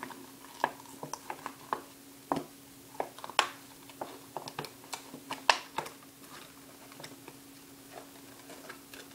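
Hard plastic blister packaging crackling and clicking as it is worked and pried open by hand, in irregular snaps with a couple of sharper ones. A steady low hum runs underneath.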